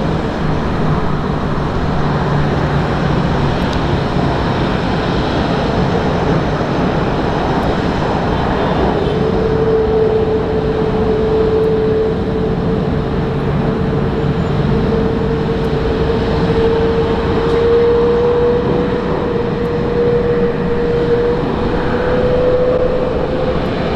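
Boeing 787-10's Rolls-Royce Trent 1000 engines running at taxi power as the jet rolls slowly by: a loud, steady rumble, with a clear whine that comes in about nine seconds in and slowly rises in pitch.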